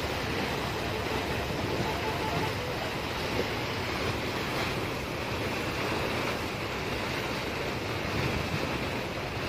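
Steady rush of wind and choppy sea heard from a boat on open water, with wind blowing on the microphone.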